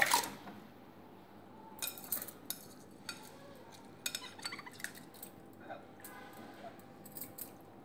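Light clinks and taps of a cut-glass bowl against an aluminium pressure cooker as the last soaked rice and moong dal are scraped from the bowl into the cooker. The taps come scattered, a few at a time, from about two seconds in.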